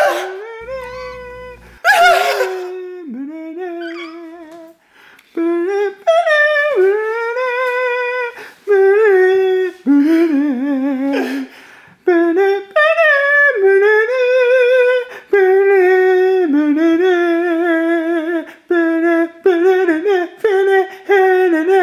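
A single voice, unaccompanied, sings a slow wordless melody in held, wavering notes, each one to two seconds long. It opens with a loud cry, and another comes about two seconds in.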